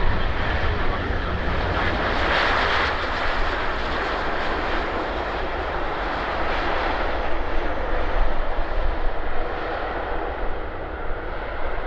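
Airbus A330-300's Rolls-Royce Trent 700 jet engines in reverse thrust on the landing rollout: a steady rushing noise over a low rumble, loudest about two to three seconds in, then slowly easing.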